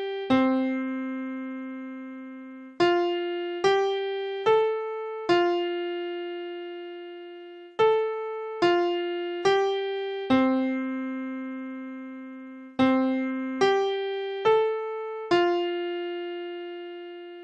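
Piano playing a slow single-note melody, a simple tune imitating a funny sound effect. The notes come in phrases of four struck notes, and the last note of each phrase is held and left to ring out.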